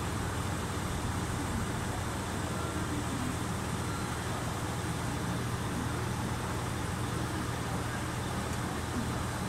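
Trains standing at a station platform, a steady low hum at idle with an even background hiss.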